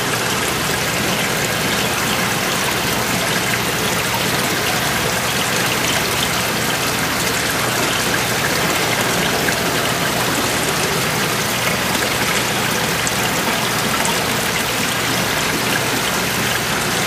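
Fish tank water circulation: a steady, unbroken rush of trickling water.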